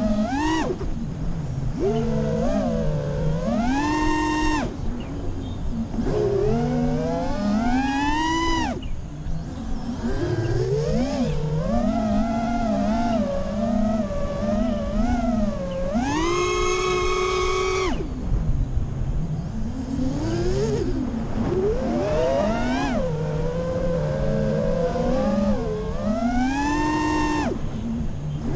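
FPV racing quadcopter's four T-Motor LF40 2305 2450kv brushless motors spinning HQProp Ethix S3 propellers: a whine whose pitch rises and falls again and again with the throttle, held at its highest for about two seconds near the middle.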